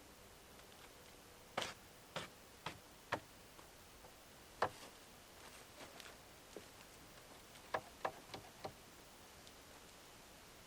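A scattered series of about nine short, sharp knocks and clicks, irregularly spaced, most of them in two clusters, one a couple of seconds in and another near the end.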